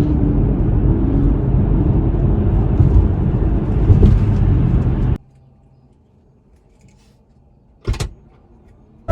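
Steady road and tyre noise inside a moving car, which cuts off suddenly about five seconds in. A brief double thump follows near the end.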